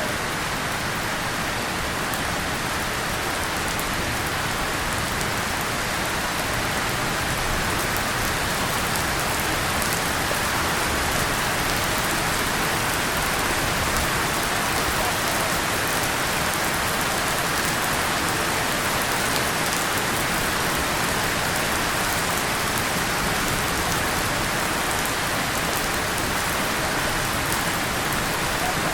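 Steady rain falling on a tin surface and leaves, an even, unbroken hiss with no thunder.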